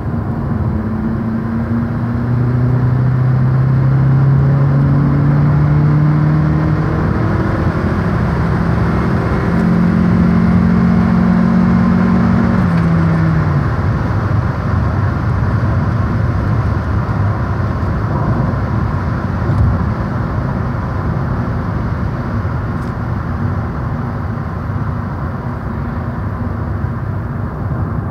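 Honda R18 1.8-litre four-cylinder engine of a 2007 Civic sedan pulling hard under full acceleration, its note rising as the revs climb and stepping to a higher tone as the secondary intake runners open, heard from inside the cabin. About halfway through the engine note drops away as the throttle is lifted, and tyre and wind noise carry on.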